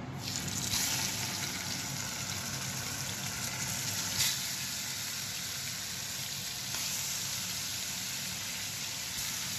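Fish frying in hot oil in a pan, a steady sizzle with a couple of brief louder swells.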